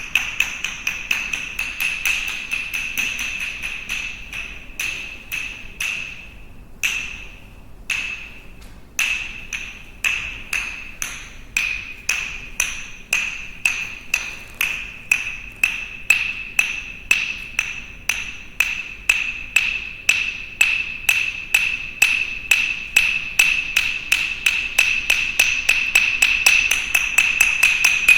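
Sticks struck in a steady run of sharp, ringing clacks, about three a second, each with the same high pitch. The strikes thin out briefly about seven seconds in, then grow quicker and denser toward the end.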